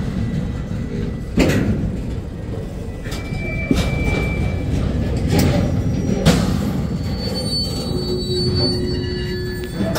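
Slow-moving freight train of centerbeam flatcars rolling past with a steady low rumble, broken by several sharp metallic bangs and clanks. Thin wheel squeals come in near the middle and again toward the end.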